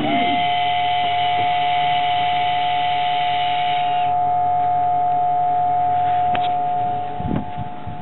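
Ballast system switched to drain: a ballast pump starts with a steady whine that holds for about seven seconds, while the electric ball valve's actuator motor whirs for about the first four seconds as it turns the valve open. A few clicks near the end.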